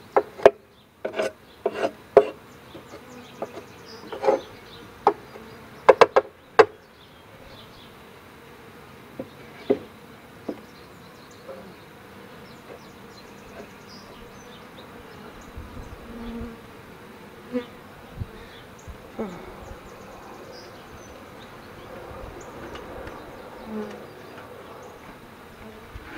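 Honeybees buzzing around an opened Langstroth hive, with single bees humming briefly past now and then. In the first seven seconds or so, sharp wooden knocks and scraping as a hive tool and the wooden hive parts are worked.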